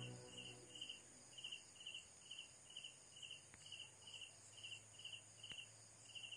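Faint cricket chirping, about two short pulsed chirps a second, with two faint clicks in the second half.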